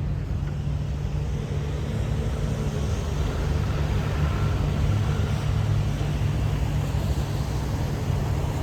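An engine running steadily: a constant low drone with an even rushing hiss over it.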